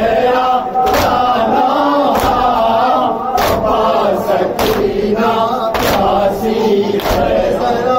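Men chanting a nauha (Shia lament) together with matam: unison chest-beating slaps landing about every second and a quarter, in time with the chant.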